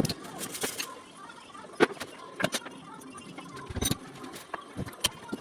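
Irregular metallic clinks and knocks of hand tools and parts being handled during disassembly work on an electric scooter.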